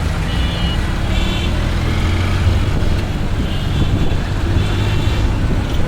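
Road traffic heard on a ride through city streets: a steady low engine rumble under traffic noise, with several short high-pitched beeps.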